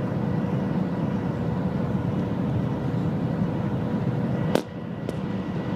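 Shanghai Maglev train cabin at high speed: a steady low rushing noise with a faint steady hum. About four and a half seconds in there is a single sharp click, and the noise dips for a moment after it.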